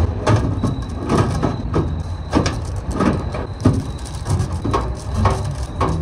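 Sheet-metal microwave outer cover being slid back onto the chassis and handled: a run of irregular metallic clicks, knocks and scrapes.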